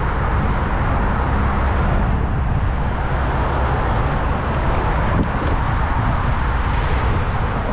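Steady wind and road-traffic noise heard while cycling on city streets, heavy and rumbling in the low end, with no single event standing out.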